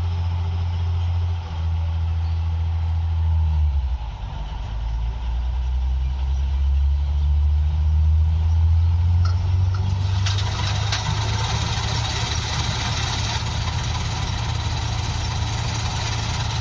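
Heavy engine running with a strong low drone that changes note about four seconds in. About ten seconds in, a loud rushing noise joins it.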